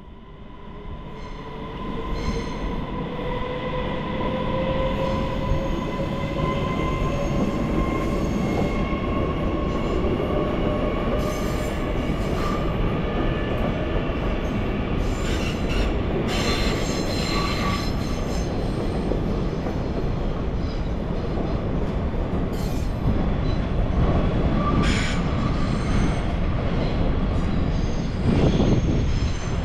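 Train moving through the station: a dense rumble with a whine that climbs slowly in pitch over the first several seconds and then holds steady. Short high squeals of wheels on the rails come now and then.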